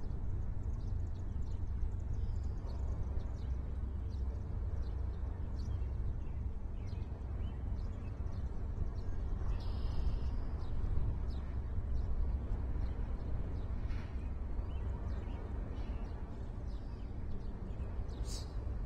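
Outdoor ambience: a steady low rumble with small birds chirping and calling on and off, and one sharper high call near the end.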